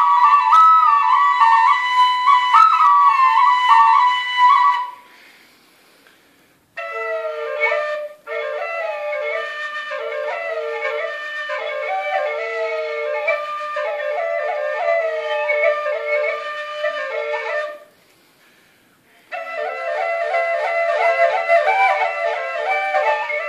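Albanian double flute (cyla dyjare) playing a shepherd's folk melody, a steady low drone pipe sounding under the melody pipe. It is preceded by a few seconds of a higher single-line flute melody, with a break of about two seconds before the double flute enters and another short break near the end.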